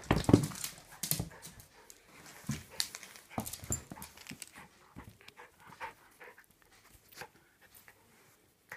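Dogs panting while they play, with scattered short clicks and scuffles, loudest in the first second or so and sparser toward the end.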